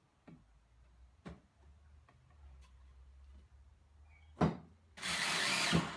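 Wood being worked by hand: a few light taps, a sharp knock about four and a half seconds in, then a loud, even rasping stroke across timber lasting about a second near the end.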